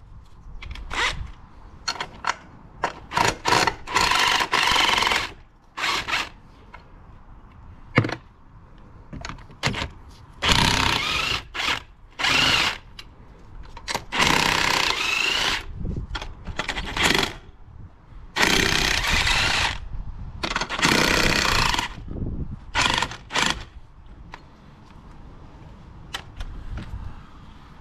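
Cordless power tool, an impact wrench or electric ratchet, running in a series of short runs, the longest about a second and a half, as it undoes the bolts of an engine mount.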